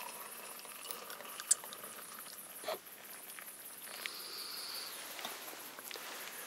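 Small wood gas camping stove burning, with a few sharp crackles or clinks, over a steady high hiss that pulses evenly.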